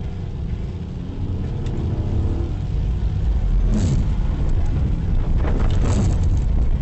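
Car's engine and tyres on a wet road heard from inside the cabin: a steady low rumble that grows louder about three seconds in. Brief swishes of the windshield wiper across the wet glass come near the middle and again near the end.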